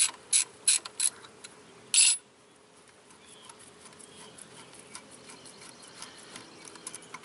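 Hand socket ratchet clicking in short strokes as the bolts on the power steering pump's pressure hose are loosened. Several sharp clicks come in the first second, then a louder quick run of clicks about two seconds in, then only faint ticking.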